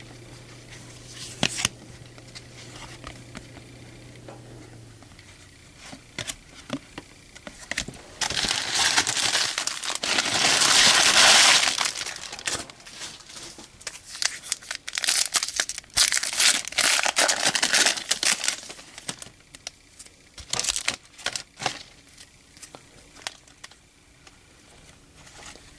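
A foil baseball-card pack wrapper being torn open and crinkled by hand, with loud crackling for a few seconds in the middle and more crinkling after, among scattered light clicks from cards being handled.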